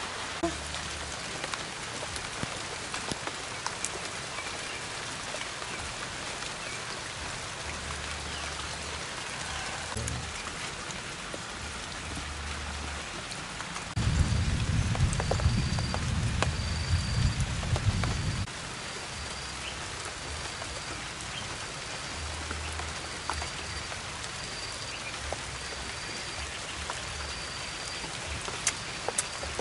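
Steady rain, an even hiss with scattered ticks of drops. About halfway a loud low rumble lasts about four seconds, and in the later part a faint high chirp repeats about once a second.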